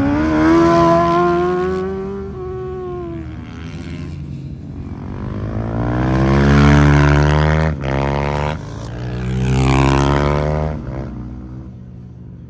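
Racing superbikes passing at high revs, their engine pitch rising and falling in several swells as the bikes go by. The loudest pass comes about seven seconds in, with a short break in the engine note just after, and the sound fades near the end.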